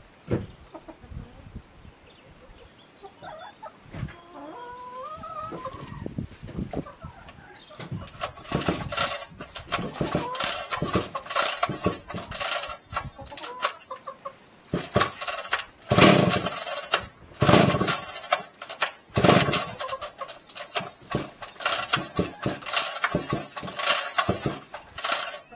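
Husqvarna chainsaw being pull-started over and over: a run of short whirring pulls on the recoil starter, about one a second from about eight seconds in, without the engine settling into a steady run.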